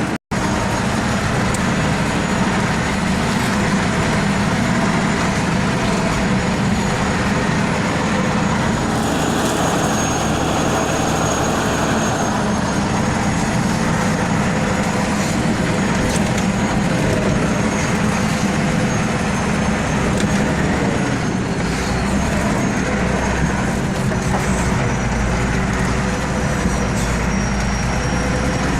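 Diesel engine of an off-road vehicle running steadily under load while driving, heard from the cab.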